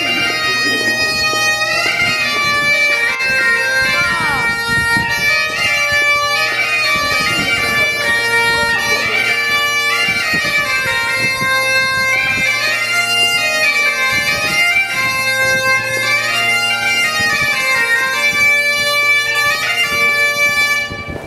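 Galician bagpipe (gaita) playing a lively melody over a steady drone, echoing in a stone archway.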